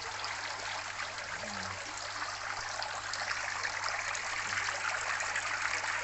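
Water trickling and splashing steadily as it drains from aquaponic grow-bed baskets into the fish pond below, the pump-circulated return flow. It grows a little louder from about three seconds in.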